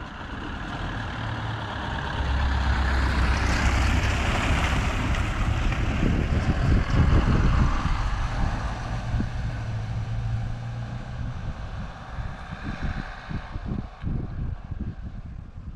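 Truck engine running as it climbs through a hairpin bend, growing louder as it comes close and passes, then fading as it pulls away up the road.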